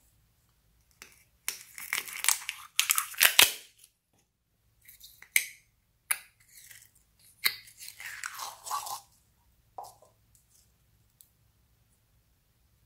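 Clear yellow slime being pulled out of a plastic jar with the fingers and stretched: sticky squelching and crackling in several bursts with quiet gaps between, the loudest about three seconds in.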